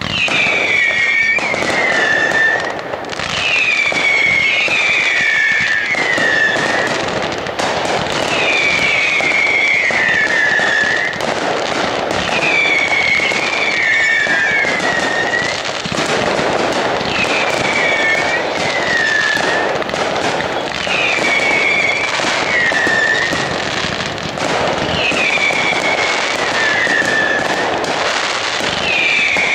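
Aerial fireworks in a dense, continuous barrage of bangs and crackle. Over it come high whistles that slide down in pitch, in twos and threes, repeating every couple of seconds.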